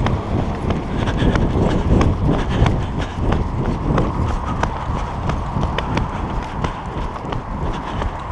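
Footsteps on a concrete sidewalk at a walking pace, about two steps a second, over a steady low rumble.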